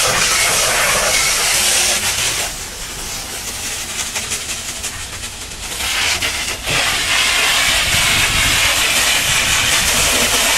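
High-pressure washer jet hissing and splashing as it blasts caked dried mud off a truck's wheel, chassis and fuel tank. About two and a half seconds in, the spray goes quieter for about four seconds, then comes back full.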